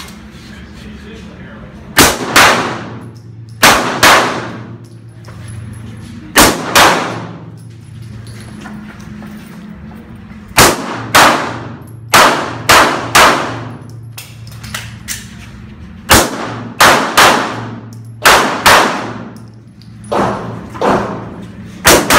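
Pistol shots fired mostly in quick pairs, in several strings with short pauses between them. Each shot echoes off the walls of the indoor range.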